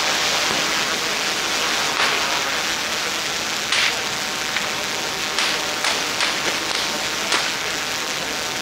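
Large bonfire of a burning wooden king boat and its pile of paper offerings: a steady rushing crackle with sharp pops now and then, the strongest about two seconds in and near four seconds in.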